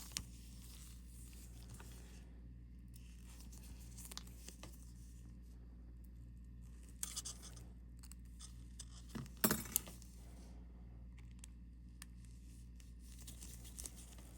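Faint, scattered clicks and light scrapes of small watch parts and tools being handled, with a sharper click about nine seconds in, over a steady low hum.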